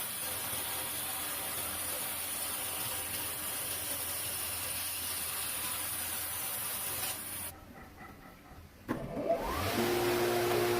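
A steady machine hum with a hiss runs for about seven seconds, then drops away. About nine seconds in, an electric power tool's motor spins up with a rising whine and settles into a steady run.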